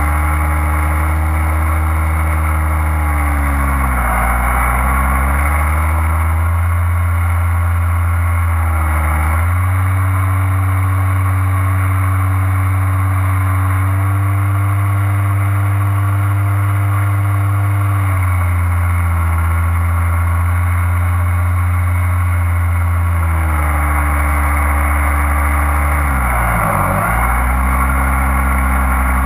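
Motor and propeller of a small aircraft flying low, heard from its onboard camera with wind rushing over the microphone. The motor runs steadily and its pitch dips and comes back a few times as the throttle changes, with a deep, sudden drop near the end.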